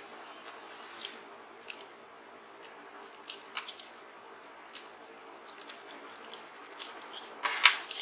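Small sharp clicks and ticks of a precision screwdriver fastening the side screws of a 2.5-inch laptop hard drive's mounting bracket, with a louder clatter of metal near the end as the drive is handled.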